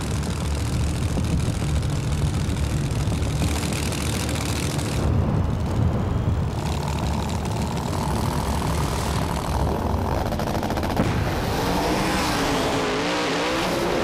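Drag racing cars' engines running loud and rough at the starting line, with the revs rising and falling in blips near the end.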